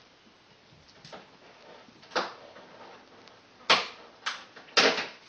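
A door being knocked and bumped as cats bat at it and around it: about five short, sharp knocks, one about two seconds in and a quick cluster near the end.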